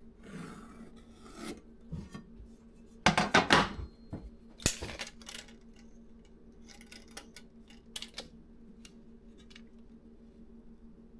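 Pieces of 2x6 lumber being handled on a work surface: a scraping slide, then a quick run of loud knocks and clatters about three seconds in, a single knock shortly after, and lighter clicks and taps later.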